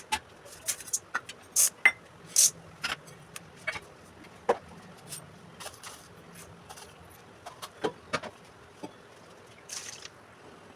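Kitchen utensils clicking and clinking in irregular sharp knocks, about one or two a second, some of them loud.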